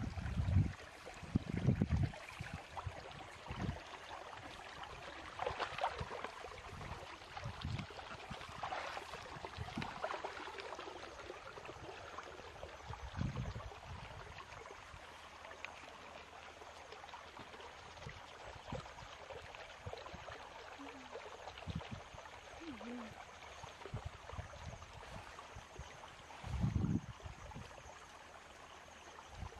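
Water trickling steadily in a small field ditch. A few low thumps on the microphone break in near the start, about halfway, and near the end.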